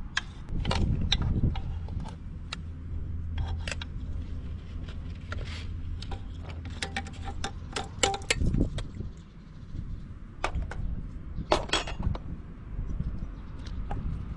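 Metal spoon clinking and scraping against a cooking pot as rice is scooped and layered, in many short irregular clinks. A low steady hum runs under the first half.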